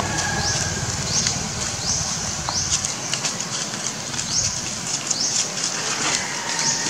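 Outdoor ambience with a high, rising chirp from a calling animal, repeated every half second or so over a steady hiss.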